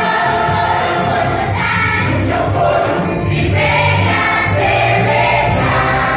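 Choir singing a Christmas cantata song with band accompaniment: sustained bass notes underneath and a regular high percussion beat, like a hi-hat or tambourine.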